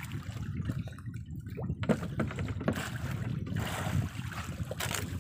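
Wind rumbling on the microphone over water sloshing against the hull of a small outrigger fishing boat, with a few light ticks from the handline being worked.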